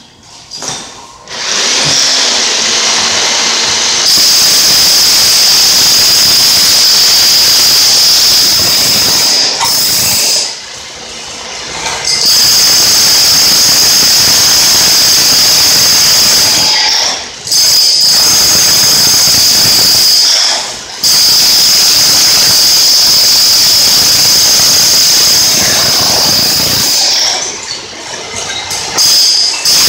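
Corded electric demolition hammer with a long scraper chisel chipping floor tile off a concrete slab, running loud in long bursts with a steady high whine over the hammering. It stops briefly four times, about 10, 17, 20 and 27 seconds in, each time starting up again.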